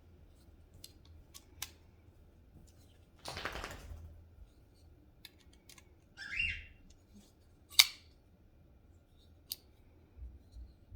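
Small clicks and handling sounds from a screwdriver and folding knife while the knife's pivot screw is being tightened, with a short scraping about three seconds in, a brief high squeak about six seconds in, and one sharp, loud click near eight seconds.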